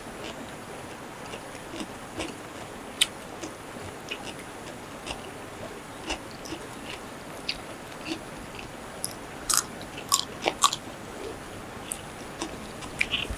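Close-up eating sounds of people eating by hand: chewing, crunchy bites and wet mouth clicks, with a cluster of louder crunches about ten seconds in.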